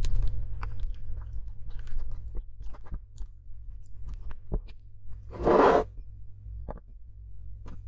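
A silicone spatula stirs and presses a thick sugar slime mixture in a glass bowl, giving a run of short, sticky crackles and clicks. A louder half-second rush of noise comes about two-thirds of the way through.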